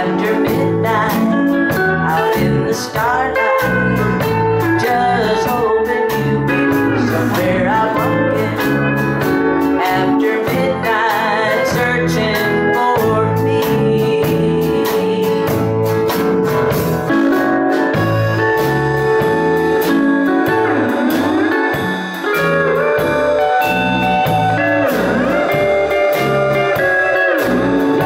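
Live country band playing: pedal steel guitar, acoustic and electric guitars, bass and drums, with a woman singing.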